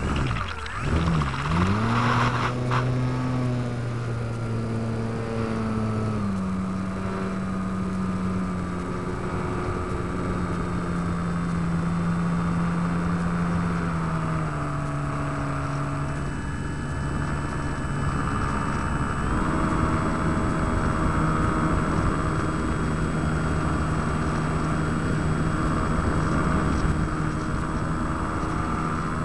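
Electric motor and propeller of a Crash 3D indoor model plane, heard from a camera on board: a steady buzzing drone that climbs in pitch about a second in, then holds, shifting up and down in steps as the throttle changes.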